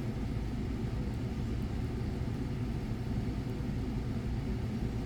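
Steady low rumble of background noise, with a couple of very faint ticks.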